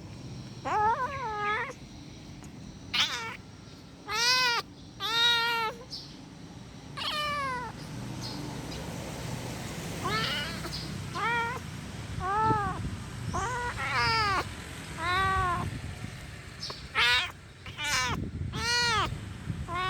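Kitten meowing angrily: a string of short, high-pitched meows, roughly one every second, each rising and then falling in pitch.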